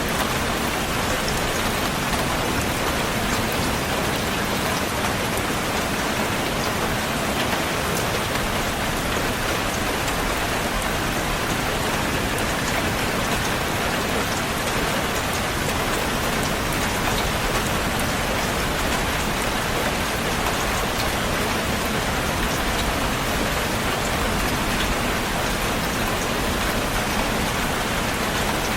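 Heavy rain falling steadily, a dense even hiss with fine drop patter on a hard surface.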